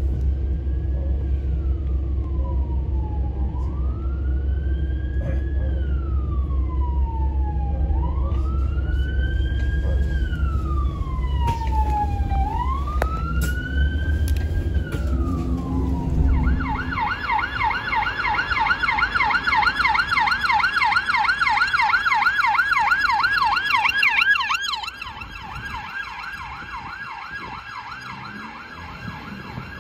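UK police vehicle sirens. First a slow wail that rises quickly and falls away, about once every three and a half seconds, over a deep rumble. Just past halfway it switches abruptly to a fast yelp, which suddenly becomes much quieter near the end.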